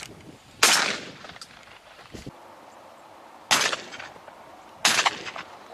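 Three gunshots: a loud one just under a second in, then two more about three and four seconds later, each a sharp bang with a short echoing tail.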